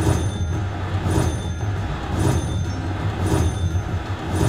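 Slot machine game sounds: a sharp beat about once a second over a steady low hum, with a few high electronic tones held underneath.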